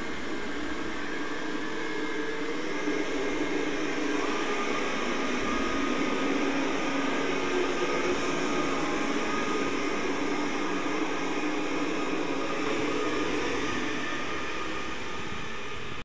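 Robot vacuum cleaner running: a steady motor whir with faint tones that drift slightly in pitch.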